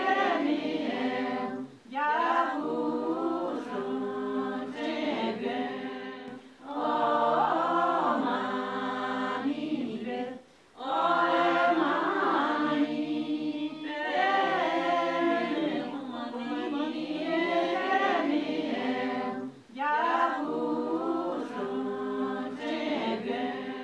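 Unaccompanied voices singing together in long melodic phrases, with short breaks between the phrases.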